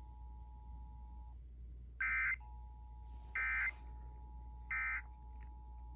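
EAS end-of-message data bursts: three short, identical buzzy bursts about a second and a half apart, the digital tones that close an Emergency Alert System test, heard through a radio.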